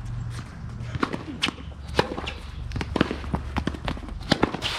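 Tennis rally: a quick series of sharp pops as rackets strike the ball and the ball bounces on the court.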